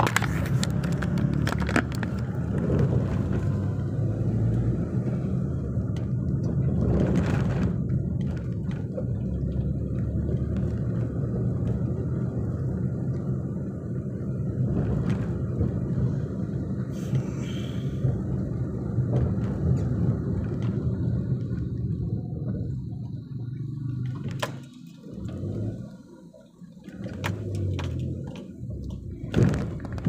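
Car driving, heard from inside the cabin: a steady low rumble of engine and tyres on a rough road, with a few short knocks and thumps. The rumble drops briefly for a couple of seconds near the end.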